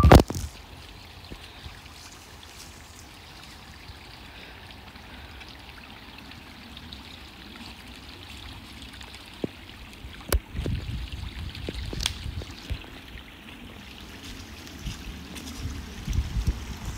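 Small woodland stream trickling steadily, with a sharp click right at the start. From about ten seconds in, footsteps crunch through dry fallen leaves.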